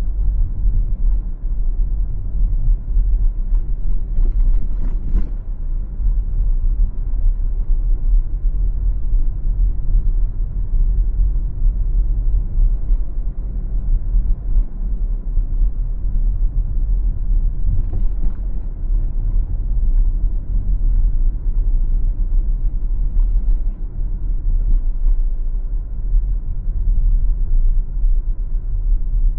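Steady low rumble of a car driving: road and tyre noise, with a couple of faint brief clicks along the way.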